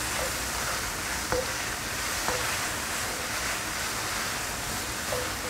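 Beef tendon pieces with garlic and ginger sizzling steadily in a non-stick wok as a spatula stirs them, with a few light spatula scrapes against the pan.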